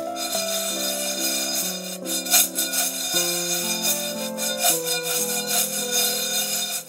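Background music of held notes that change every half second or so, over the dry rattle and swish of raw arborio rice grains tossed in a hot pan to toast, with a sharper swish about two and a half seconds in.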